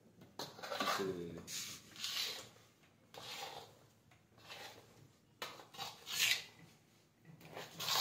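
Metal spoon scraping and stirring a thick paste against the sides of a brass bowl, in repeated strokes at irregular intervals.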